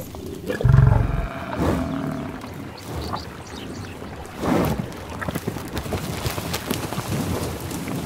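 A buffalo gives a short, deep bellow about a second in, and a second rasping call or snort follows near the middle. Water sloshes as a water buffalo wades through a weedy pond.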